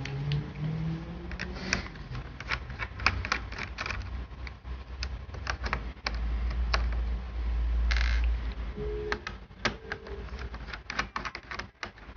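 Irregular small clicks and taps of a laptop being taken apart by hand, with a low rumble of handling from about six to eight seconds in.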